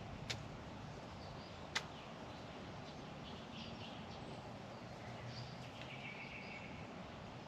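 Crested pigeon sneezing twice, two short, sharp clicks about a second and a half apart near the start, over outdoor ambience with faint bird calls.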